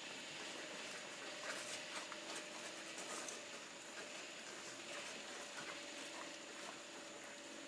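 Two-week-old Labrador puppies suckling at their mother, an irregular run of small wet clicks and smacks.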